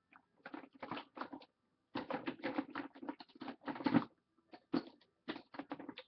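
Irregular clicking and clattering of small plastic makeup containers and brushes being handled and rummaged through, in short bursts with brief pauses.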